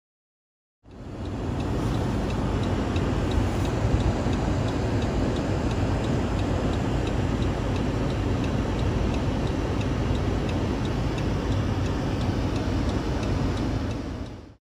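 Engine running steadily with a light, even ticking over it, starting abruptly about a second in and cutting off just before the end.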